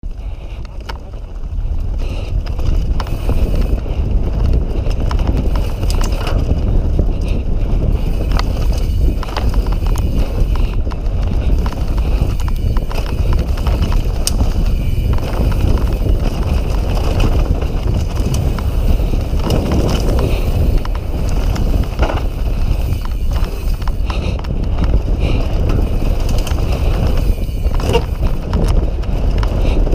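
A Propain Rage downhill mountain bike ridden fast down a dirt trail, heard from a camera on the bike or rider. There is a constant low rumble of tyres and wind, with many sharp rattles and clatters from the bike as it takes the bumps. It gets louder within the first two seconds as speed builds.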